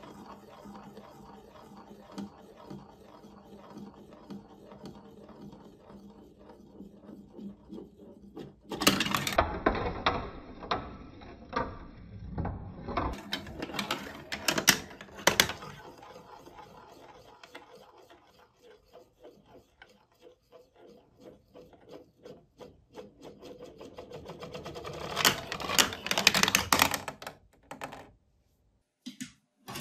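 A glass marble rolling along plastic marble-run tracks with a steady rumble. It clatters loudly with rapid clicks twice as it drops through the pieces, once for several seconds in the middle and again briefly near the end.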